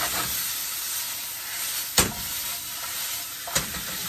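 Chicken and vegetables sizzling in a hot steel wok while being stirred with a wooden spatula, with two sharp knocks, about two seconds in and again near the end.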